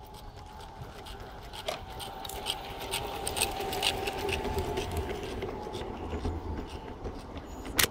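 Large-scale garden model train passing close by, a wheel squealing with a steady high whine over the rolling of its wheels and irregular clicks on the track. It grows louder as the train nears, with one sharp click near the end.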